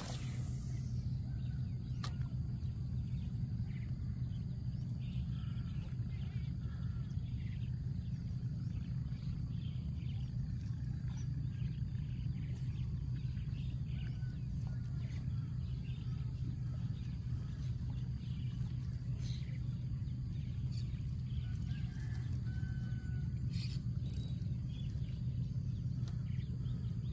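A steady low drone throughout, with scattered short bird chirps over it. There is a brief swish at the very start and another faint one about two seconds in.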